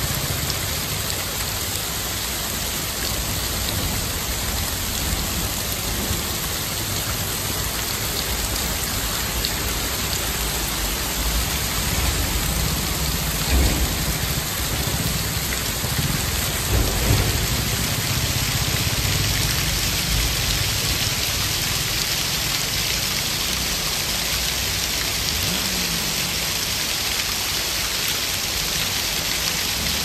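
Steady splashing hiss of water pouring down a roadside rock face and spattering on the ground. A couple of brief low rumbles from passing motorcycles swell up about halfway through.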